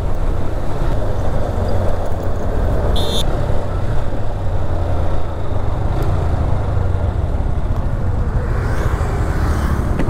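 Honda Hornet 160R motorcycle riding along a road: its single-cylinder engine runs steadily under a dense rumble of wind over the camera microphone, with road traffic around it.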